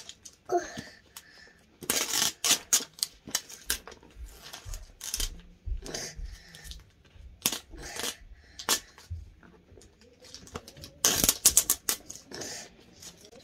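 Hard plastic toy egg parts and packaging being handled: a run of irregular clicks, taps and crinkles, with a few dull thumps in the middle and a burst of loud clicking about eleven seconds in.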